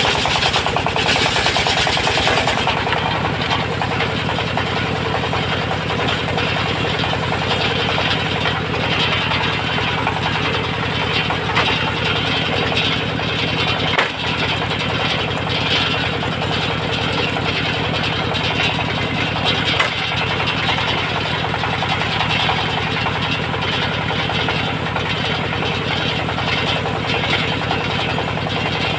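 Engine-driven circular sawmill running steadily, with a short sharp click about halfway through and another about two-thirds of the way through.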